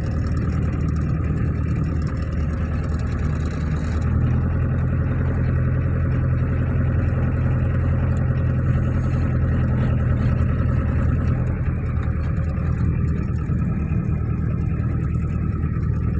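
Car interior noise while driving on a dirt road: a steady low drone of engine and tyres. The engine note firms up about four seconds in and eases back around eleven seconds.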